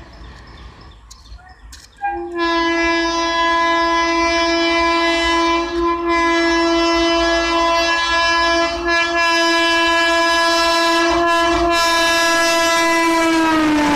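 Indian Railways electric locomotive's horn sounding one long, steady blast of about twelve seconds as the express approaches. The pitch drops near the end as the locomotive passes.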